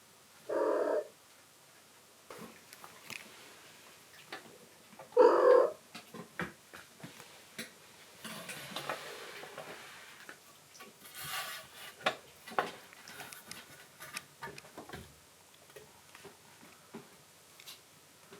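A kitten meows twice, about a second in and again about five seconds in, each a short call. After that come many light clicks, scratches and rustles from kittens moving and playing on their playhouse.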